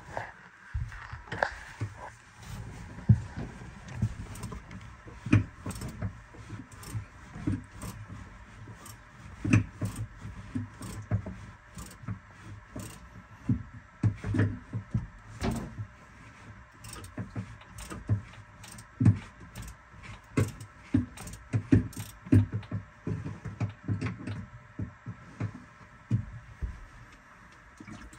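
Angle-head 3/8-inch drive ratchet clicking, with metal knocks in irregular strokes, working loose the square-head drain plug under a boat's V-drive to let the water out.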